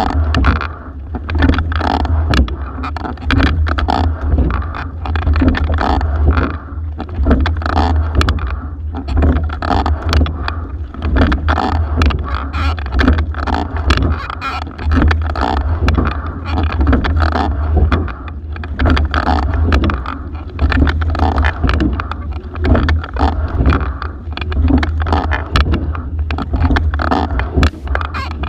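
Single racing scull being rowed hard: a steady low rumble with water rushing past the hull, swelling and dipping about every two seconds with each stroke, and short clicks and knocks from the oars and sliding seat.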